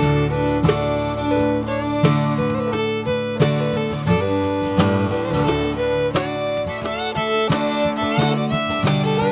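Background music: an upbeat bluegrass-style tune of fiddle over plucked acoustic guitar.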